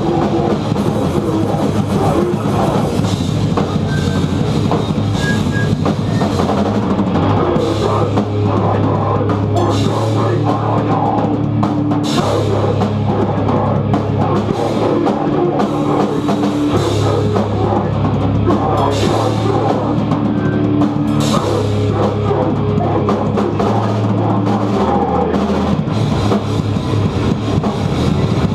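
Heavy rock band playing loudly: a drum kit with cymbals and bass notes that shift every second or two under a dense wall of guitar.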